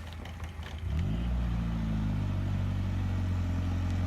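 UAZ off-road vehicle's engine starting about a second in, its pitch rising quickly and then settling into a steady idle. A few light knocks come just before it.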